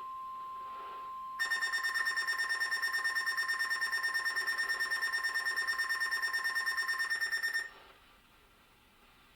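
NOAA Weather Radio's steady 1050 Hz warning alarm tone, cutting off about a second and a half in. It is followed by a louder electronic alert beeping, about nine pulses a second for about six seconds, which stops abruptly, leaving faint hiss.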